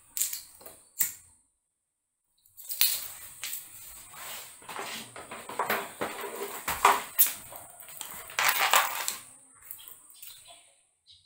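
Irregular clattering and clinking of small hard objects, as if handled or rummaged through, for several seconds. It follows a couple of sharp clicks and a brief gap.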